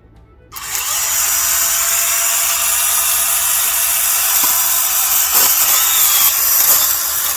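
Battery-powered DeWalt pole saw running at full speed, its chain whirring steadily. It starts abruptly about half a second in and cuts off at the end.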